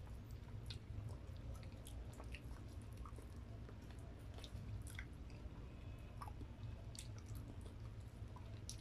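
A person chewing fried chicken: scattered small wet mouth clicks and smacks over a steady low hum.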